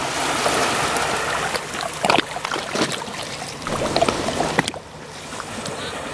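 Small sea waves lapping and splashing against a rocky shore, with irregular splashes. About three-quarters of the way in it drops suddenly to a quieter, steady wash of water.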